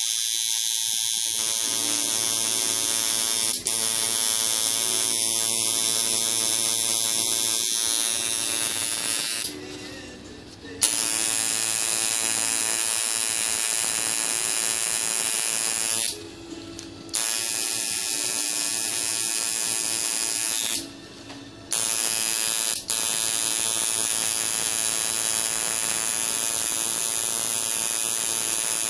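Coil tattoo machine buzzing steadily as it needles skin. It stops for about a second three times, roughly a third of the way in, a little past halfway and about three quarters through, then starts again, with a sharp click on the first restart.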